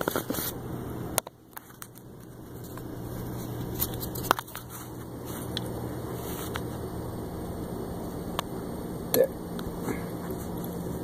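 Light clicks and taps of handling around a wiring harness connector, over a steady low hum. About a second in, the sound cuts out briefly and then swells back.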